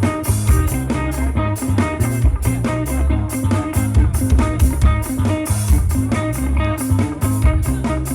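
Rock band playing live: guitars, bass and drum kit in an instrumental passage, with cymbal strokes about four a second.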